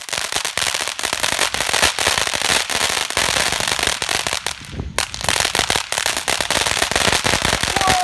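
World Class Fireworks 'Flippin Awesome' fountain firework spraying and crackling, a dense, rapid popping of crackling stars. There is a brief lull just before halfway through.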